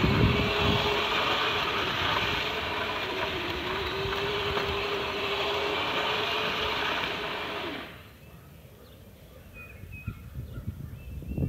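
Custom 12-volt Power Wheels Jeep on a 24-volt boost, its electric drive motors whining and plastic wheels grinding on asphalt as it spins in circles. The noise stops abruptly about eight seconds in.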